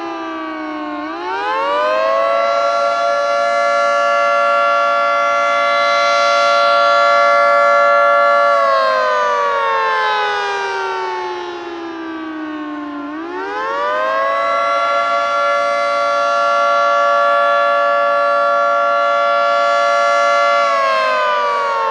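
Federal Signal 2T22A dual-tone outdoor warning siren sounding the attack signal: its chord winds up, holds steady for about six seconds, then winds down, twice over.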